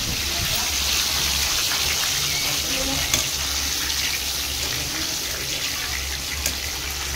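Fish-roe fritter deep-frying in hot oil in a steel kadai: a steady sizzling hiss, with a couple of sharper pops.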